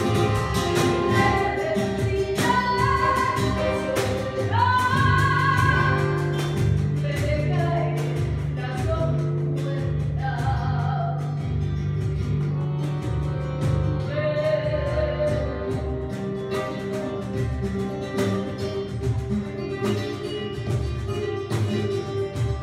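Live tango music: a singer's melody over accordion and strummed acoustic guitar, with long held low notes underneath.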